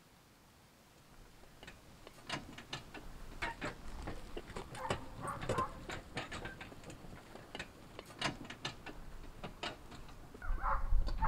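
Horse-drawn cart passing over grass: irregular clicking and rattling of the cart and its harness, starting about a second and a half in and going on unevenly.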